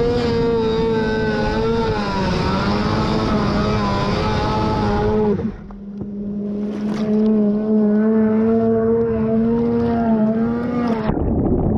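Polaris 850 two-stroke snowmobile engine of a watercross sled running hard at high revs, its pitch wavering slightly. It drops off briefly about halfway, comes back up and holds high, then cuts off suddenly near the end.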